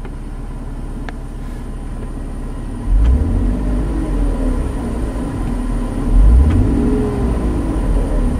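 Mercedes M112 2.6-litre V6 running at hot idle, then revved up and back down twice, about three and six seconds in, by blips of the throttle.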